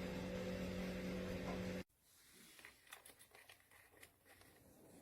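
Oscillating ceramic tower fan heater running with a steady hum, which cuts off abruptly about two seconds in. A few faint clicks follow.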